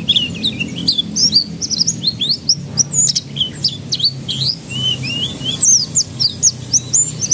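Domestic canary singing a fast, unbroken song of quick chirps, trills and rising and falling whistles.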